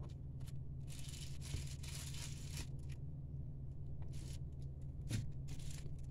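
Hobby knife slicing a piece off a stick of Milliput epoxy putty on a tile: soft scraping about a second in and again later, with a few light clicks of the blade, over a steady low hum.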